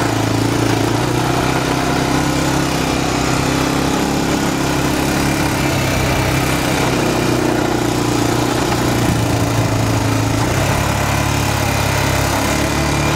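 ATV engine running while riding along a sandy trail, heard from the rider's seat. The engine note holds fairly steady, shifting up and down slightly with the throttle about halfway through and again later.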